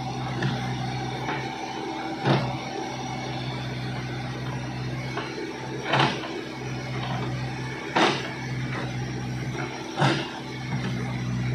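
Backhoe loader's diesel engine running steadily, with four short, loud knocks from the working machine spaced a few seconds apart.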